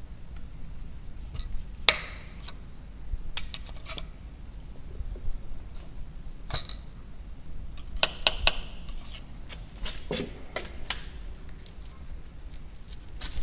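Irregular light clicks and knocks from a loading rod being worked down the barrel of a .36 calibre black powder muzzle-loading match pistol to seat the ball, with a denser run of sharper clicks about eight seconds in.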